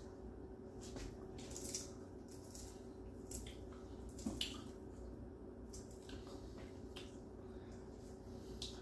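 Faint, scattered small clicks and soft taps of kitchen handling as crumbled bacon is sprinkled over clam chowder, the strongest about halfway through, over a steady low hum.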